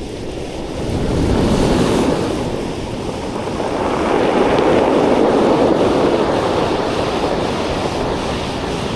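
Sea surf washing onto a beach, swelling twice as waves break, about a second and a half in and again around five seconds in, with wind buffeting the microphone.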